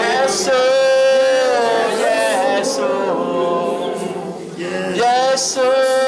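Unaccompanied worship singing led by a man's voice, with long held notes and a short break about four seconds in.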